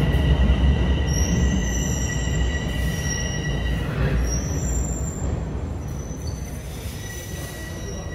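Bombardier Toronto Rocket subway train slowing to a stop alongside the platform. A low rumble fades as it slows, with several steady high squeals that drop away about halfway through and thinner, higher squeals coming and going near the end.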